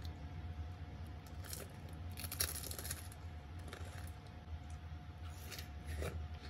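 A person biting and chewing crisp watermelon close to the microphone: a few short crunchy bites, the biggest a cluster about two seconds in, over a steady low hum.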